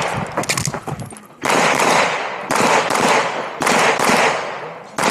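9mm Glock 47 pistol firing a course of fire: a quick string of shots in the first second, then single shots about once a second, each ringing out with a long echo.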